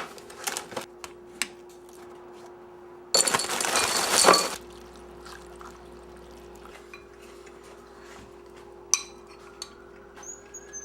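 Household clinks of glass and dishes, with a loud rush of pouring or running liquid lasting about a second and a half, about three seconds in, over a steady faint hum.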